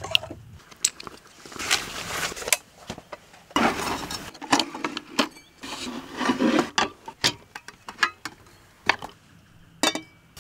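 Handling sounds of camp cooking gear: a light metal clink, then a series of sharp metal clicks and clanks with short bouts of rustling and scraping as the pot-support arms of a folding camping gas burner are swung open. A wok is set down on it near the end.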